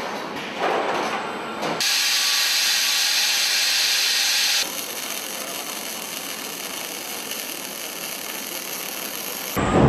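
Robotic arc welding on a car body-shop line: a loud steady hiss from about two seconds in until nearly five, then a quieter steady hiss that cuts off just before the end. Before the hiss come two short surges of machine noise.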